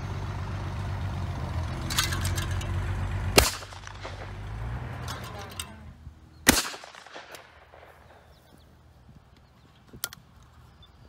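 Two loud shotgun shots about three seconds apart, each followed by a short echo. A low rumble fades away in the first few seconds, and a light click comes near the end.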